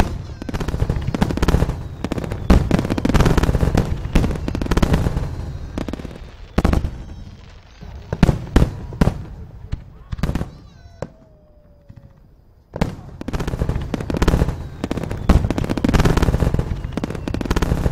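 Fireworks barrage: dense rapid bangs and crackling shell bursts, easing off into a lull about ten seconds in, then a fresh dense barrage starting about thirteen seconds in.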